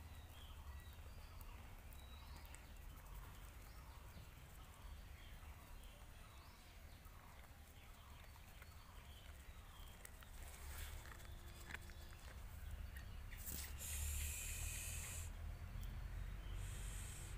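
Quiet outdoor ambience with a steady low rumble and faint scattered high chirps. A brief hissing rustle comes about three-quarters of the way through, with a shorter one near the end.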